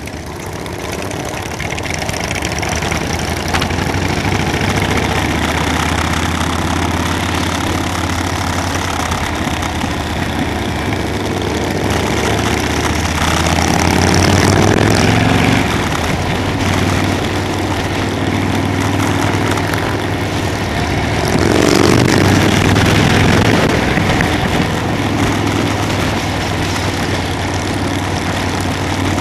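Motorcycle engine running during a ride, with a steady noisy rush over it. The engine note rises twice as it accelerates, around the middle and again later.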